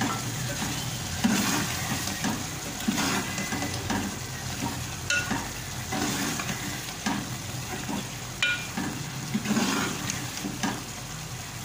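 Steel ladle stirring thick chickpea curry in a metal pot, in repeated scraping strokes with a few sharp metallic clinks against the pot, over a steady low hiss.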